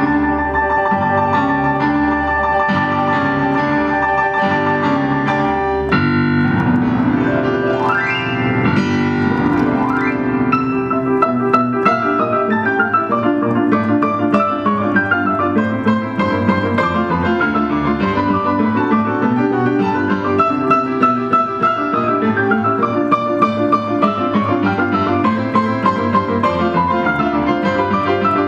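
Piano played four hands: a repeating figure, then a rising run about six seconds in, followed by quick running notes.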